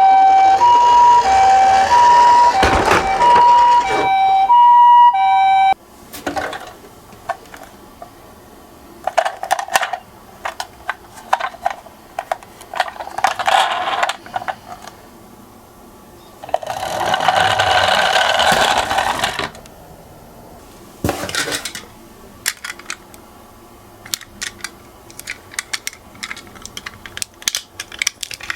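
Two-tone ambulance siren alternating high and low in the Japanese 'pee-paw' pattern, cutting off suddenly about six seconds in. Then toy minicars roll and clatter down a slope in short runs, with scattered small clicks between them.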